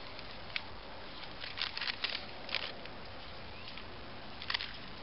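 Short crinkles and crunches from a bag of chips being handled and eaten, in a few clusters, over a steady background hiss.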